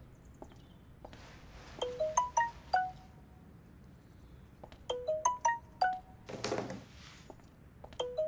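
Mobile phone ringtone: a short chiming melody of about five notes, repeating about every three seconds, three times. A soft rustle comes twice between the rings.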